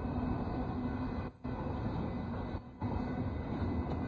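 Intermodal freight train cars rolling past a grade crossing, making a steady rumble of wheels on the rails. The sound dips briefly twice, about a second and a half in and near three seconds in.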